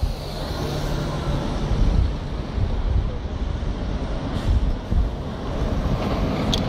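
City street traffic with a bus engine running close by, a steady low rumble, and a brief high squeak near the end.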